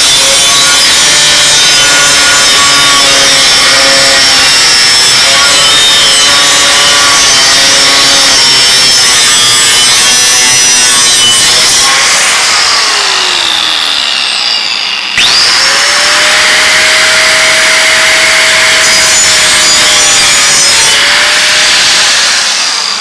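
A 4.5-inch angle grinder with a cutoff wheel cutting through a metal plate: a loud grinding hiss with a steady high whine. About 12 seconds in it is lifted off and spins down with a falling whine. About 15 seconds in it starts up again with a quick rising whine, cuts steadily, and begins to wind down near the end once the piece is cut free.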